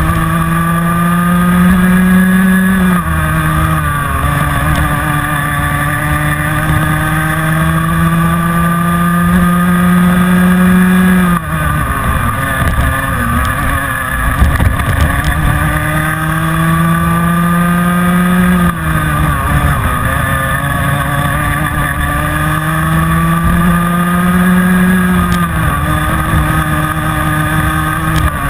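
Rotax Mini Max 125cc two-stroke kart engine heard onboard at racing speed. Its pitch climbs slowly along each straight and drops sharply four times as the driver lifts off for corners, about three seconds in, near the middle, and twice more later on.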